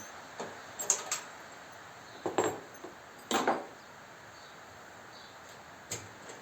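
A handful of light metallic clinks and knocks, spread irregularly, as metal case parts are handled.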